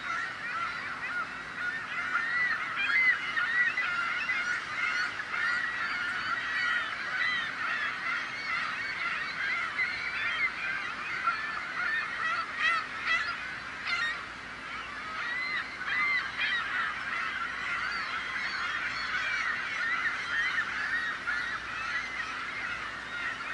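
A flock of gulls calling, many short, bending, honking calls overlapping in a constant din.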